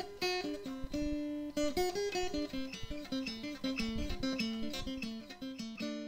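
Outro music: a plucked acoustic guitar playing a melody, one note after another.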